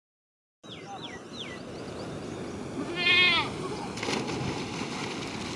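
A goat bleats once, loud and wavering, about three seconds in, over the steady wash of canal water; shortly after comes a splash of a body diving into the water.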